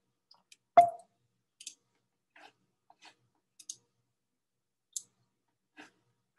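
Faint, scattered computer mouse and keyboard clicks. One much sharper knock about a second in has a brief ring.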